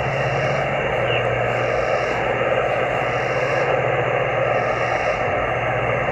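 Icom IC-703 HF transceiver's speaker hissing with steady band noise (static) as its tuning dial is turned across the 20-meter band in USB, with no station coming through; a faint short rising whistle sounds about a second in.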